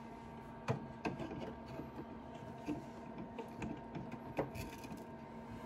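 A faint, steady machine hum with a few light clicks and knocks of handling, the loudest about a second in and again near the end.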